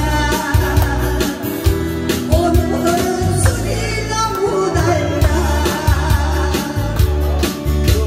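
A woman singing a Korean pop song into a microphone over strummed acoustic guitar and a steady, bass-heavy beat.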